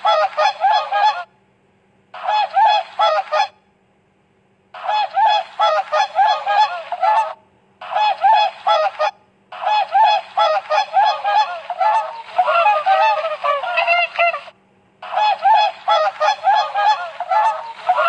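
Waterfowl honking: rapid series of nasal honks in six bouts of one to five seconds each, with short pauses between, over a faint steady low hum.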